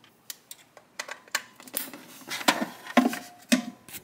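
Irregular small clicks and taps of a flat Ethernet cable being uncoiled and handled, its plastic plug knocking against the hub as one end is plugged in.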